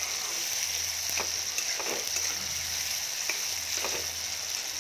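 Chopped tomatoes and green chillies sizzling steadily in hot oil in a metal kadhai. A flat metal spatula scrapes and taps against the pan a few times as it is stirred.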